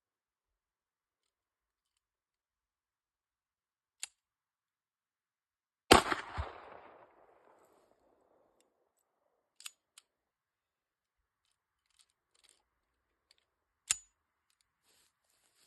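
A 9mm 1911 pistol fired once, a loud crack with an echo that trails off over a second or two. Small clicks of handling come before and after, and another sharp, shorter crack comes near the end.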